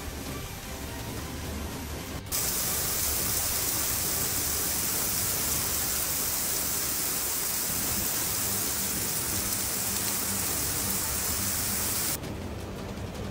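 Heavy rain pouring down in a dense, steady hiss. It jumps suddenly much louder and brighter about two seconds in, holds, and drops back to a softer rain hiss about a second before the end.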